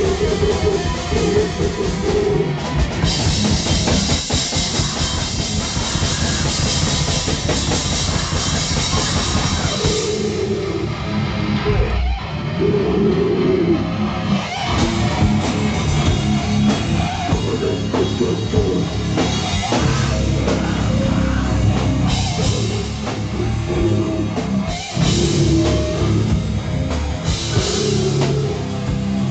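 Live heavy rock band playing loudly: distorted electric guitar over a full drum kit, with a brief stop about twelve seconds in before the band crashes back in.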